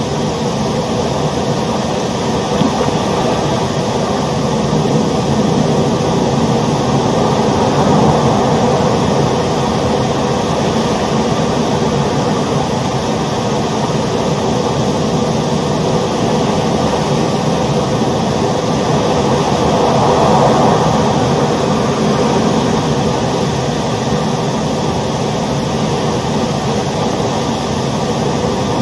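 Ocean waves: a steady roar of surf that swells gently a couple of times.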